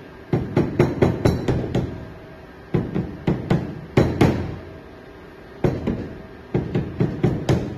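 Rubber mallet tapping a part of an Ingersoll Rand IR-231C impact wrench down flat in its metal housing during reassembly: three runs of quick, sharp knocks, several blows each, with short pauses between.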